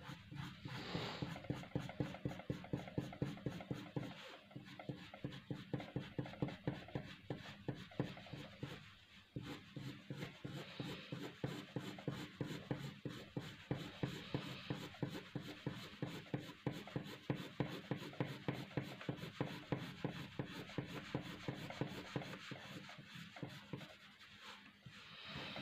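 Pencil lead scratching on paper in quick, even shading strokes, about three a second.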